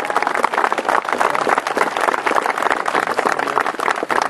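A crowd applauding, many hands clapping in a dense, steady patter.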